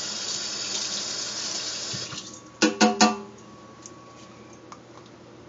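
Water running from a kitchen tap for about two seconds and then cutting off. Three quick, ringing clinks follow, like a utensil knocking against glass or metal.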